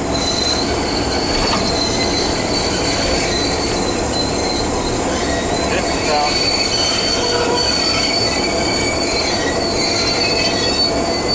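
Diesel locomotive's brake shoes squealing on the wheels as the air brakes are set, a steady high-pitched squeal lasting about eleven seconds over the steady rumble of the cab.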